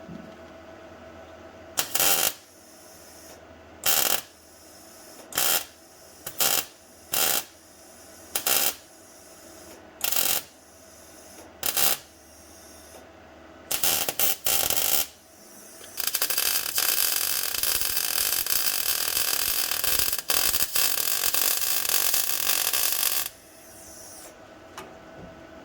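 Electric welding on sheet steel: about eight short tack welds of half a second each, a few more close together, then one longer weld run of about seven seconds.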